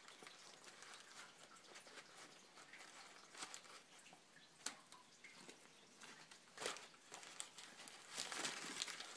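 Faint rustling and a few light clicks from hands handling small transmission bearings and paper coffee filters while wiping off old grease.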